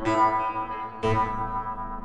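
Background music: keyboard chords struck about once a second, each one fading before the next.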